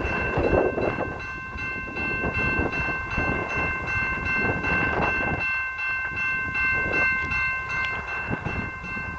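Railway level-crossing warning bell ringing steadily, with a low rumble underneath.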